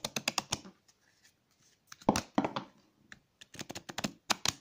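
A deck of laminated oracle cards being bent and riffled, the card edges flicking off the thumb in three quick runs of sharp clicks. The cards are being loosened because they stick together.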